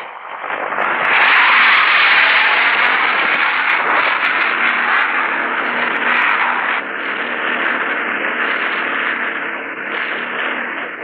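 Bell AH-1 Cobra attack helicopter hovering: a steady, loud rush of rotor and turbine noise that builds in over the first second and eases slightly about seven seconds in.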